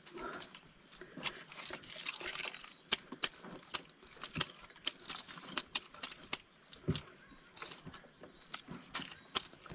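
About twenty irregular sharp clicks and taps, with one duller knock, as live giant freshwater prawns are handled and counted.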